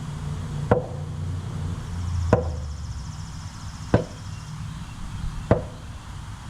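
Sledgehammer blows, four evenly spaced strikes about a second and a half apart, each a sharp knock with a short ring, driving home the block or wheel during a tractor rear-wheel removal.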